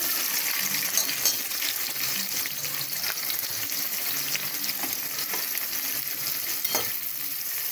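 Sliced onions sizzling and frying as they drop into hot oil in a pressure cooker, with a steady hiss and now and then the click and scrape of a steel ladle stirring against the pot.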